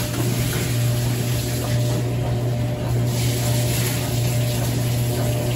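Brastemp top-loading washing machine running with a load of sheets: a steady low motor hum over an even hissing whir.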